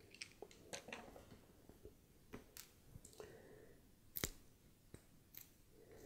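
Faint, scattered clicks and small taps of a tiny screw, a screwdriver and the plastic camera body being handled on a wooden workbench, with one sharper tap about four seconds in.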